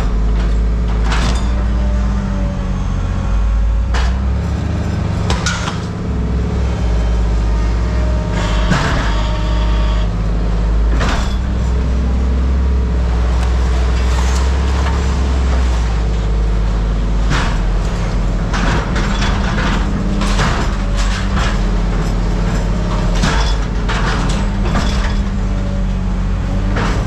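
A heavy engine running steadily, with many sharp metal clanks and knocks scattered over it.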